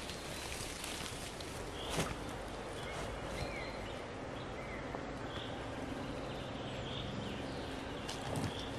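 Outdoor woodland ambience: a steady background hiss with small birds giving short chirps, more often in the second half, and a single sharp click about two seconds in.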